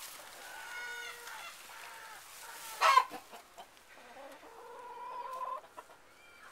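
Chicken calling: a run of short clucks, one loud sharp cry a little before three seconds in, then a longer drawn-out call that stops abruptly about five and a half seconds in.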